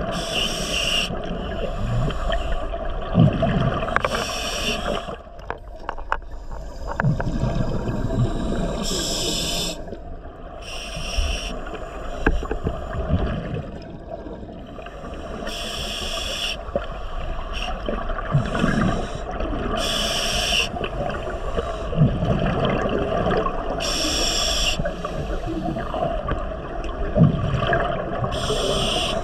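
Scuba diver breathing through a regulator underwater: a short hiss on each breath every few seconds, with bubbling and gurgling over a steady underwater rumble.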